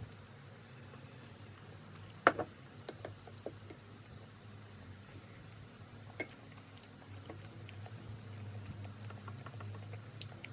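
Scattered light clicks and taps, with one sharper knock about two seconds in and another around six seconds, over a low steady hum.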